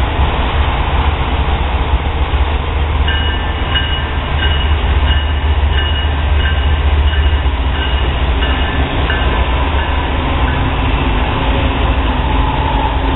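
Norfolk Southern intermodal freight train passing close by, led by GE ES44AC diesel-electric locomotives: a steady heavy rumble. From about three seconds in to about ten seconds in, a high ringing tone repeats in strokes about every two-thirds of a second, like a locomotive bell. The rumble of the double-stack container cars follows.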